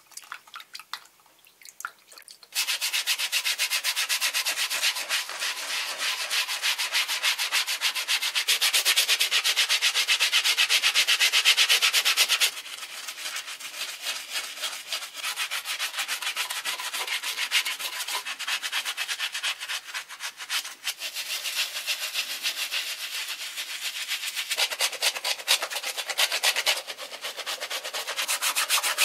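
Bristle brush scrubbing a wet, lathered suede Converse Chuck Taylor sneaker in rapid back-and-forth strokes. It starts about two and a half seconds in and is loudest for the first ten seconds or so, then a little quieter.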